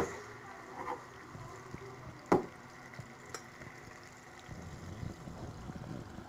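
Marinated chicken pieces spooned into hot oil in a nonstick frying pan: a few sharp clinks of the metal spoon against the pan and bowl, the loudest about two seconds in, over faint wet sizzling.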